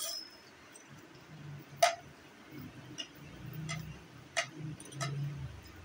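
A metal spoon clinking against a ceramic plate about five times at irregular intervals while eating, the loudest clink about two seconds in.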